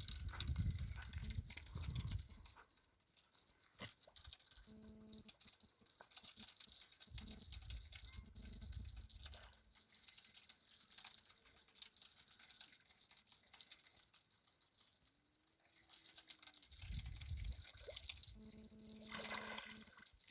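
Insects chirring in a steady, high, even buzz, with a few low rumbles on the microphone.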